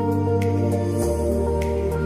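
Background music: slow, sustained chords, with the bass note changing about a second in and a faint high tick now and then.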